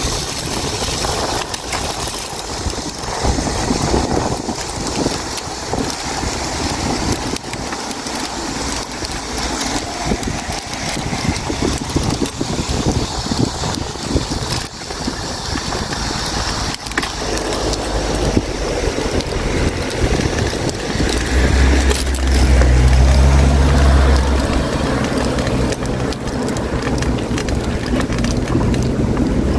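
Steady rushing wind and road noise of a moving bicycle ride, with a heavier low rumble setting in about two-thirds of the way through.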